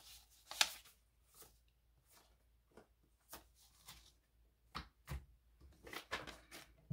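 Paper prop-money bills being handled: scattered short rustles and flicks of the bills, the sharpest about half a second in and several more close together near the end.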